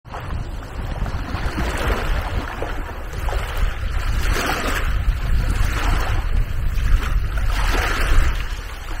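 Small waves washing onto a sandy beach, the wash swelling and fading every second or two, over a steady low rumble of wind on the microphone.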